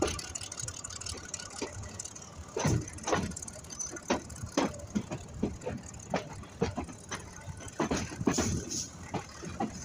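Commuter train running, a low rumble with irregular knocks and clatters spread through it.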